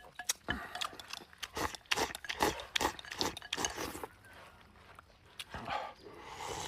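Close-miked sounds of a person eating: chewing with wet mouth smacks and clicks, irregular, a few a second.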